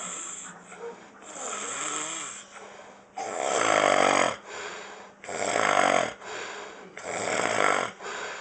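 A man snoring: a softer breath, then three loud snores about two seconds apart in the second half.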